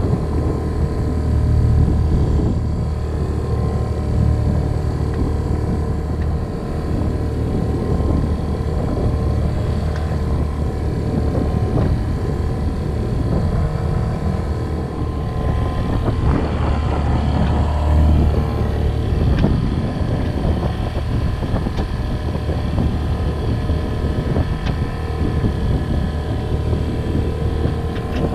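A Grampian 26 sailboat's auxiliary engine running steadily under way, a continuous low rumble.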